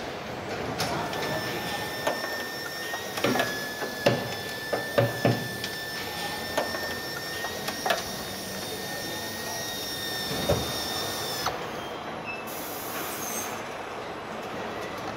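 Car assembly-line floor noise: a steady high machine whine over a background hum, with scattered sharp metal knocks and clicks from tools and body parts. The whine stops about three-quarters of the way through.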